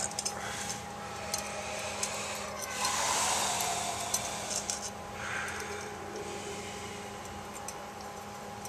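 Rustling and light handling noises as a replacement suction filter-drier core is unwrapped and turned in the hands, with a swell of rustling about three seconds in and a few faint clicks, over a steady low hum.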